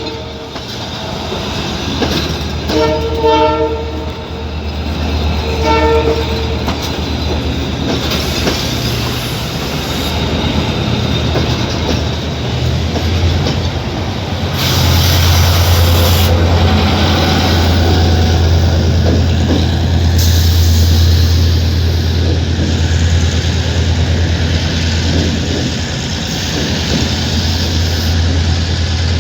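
Abu Qir commuter train sounding its horn in two short blasts within the first six seconds, then running with a steady low rumble that grows louder about halfway through, with two bursts of high hiss.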